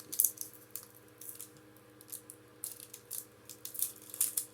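Short crinkles and rustles of a foil Pokémon booster pack being handled as it is opened.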